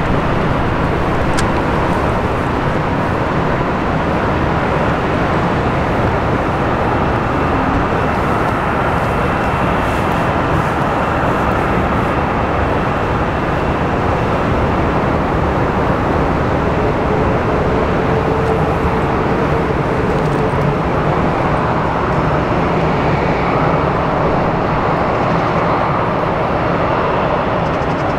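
Airbus A380 jet engines running: a loud, steady rush of noise with faint tones that shift slowly in pitch.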